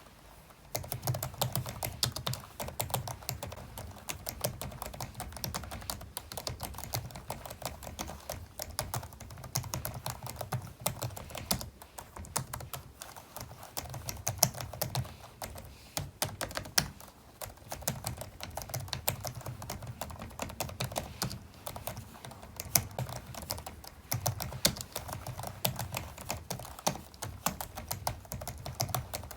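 Computer keyboard typed on steadily and fast: a dense run of clicking keystrokes, with short pauses about a third and halfway through.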